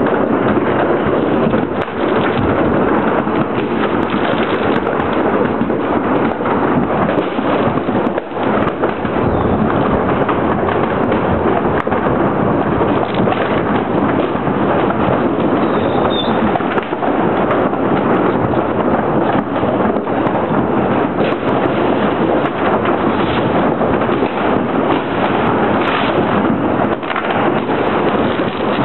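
A dense, unbroken barrage of fireworks from many launch points, countless bangs and crackles running together into a continuous rumble.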